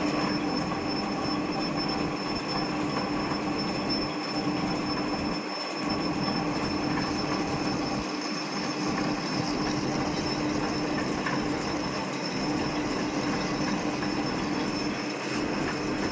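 A machine cutting aluminium: a steady, continuous metallic cutting noise with a constant high whine and a lower hum.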